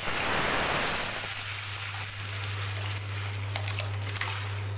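Tamarind-tomato rasam liquid poured into a pan of hot oil and tempering spices, hitting the oil with a sudden loud sizzle that settles into a steadier hiss after about a second.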